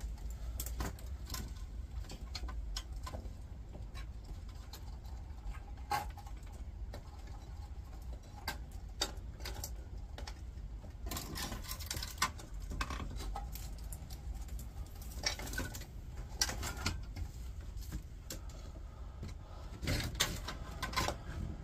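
Handling noise from a metal-cased computer power supply unit and its wire harness: scattered clicks, knocks and rustles as it is turned over and its wires are handled, over a low steady rumble.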